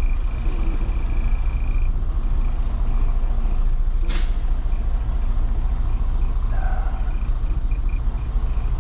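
Diesel engine of a tractor-trailer truck running steadily, heard from inside the cab as the truck is driven slowly around a lot, with one short sharp sound about four seconds in.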